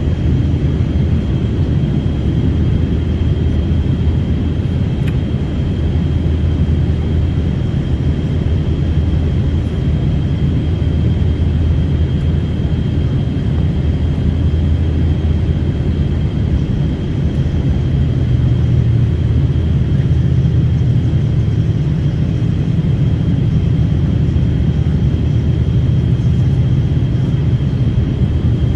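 Steady low drone of an airliner's engines and airflow heard from inside the passenger cabin, with a thin steady high tone above it. The low part shifts slightly about two-thirds of the way through.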